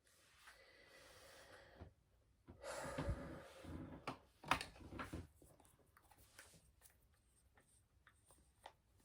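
A woman's hiccups and breathing: a soft breathy sound in the first two seconds, then several sharp hiccups bunched together in the middle, followed by faint small clicks.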